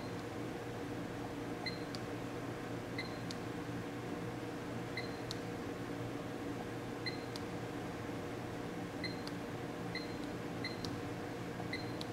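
Short electronic beeps from a seam welder's touchscreen control panel as its keys are tapped, about nine at irregular intervals, several followed by a light click. A steady hum runs underneath.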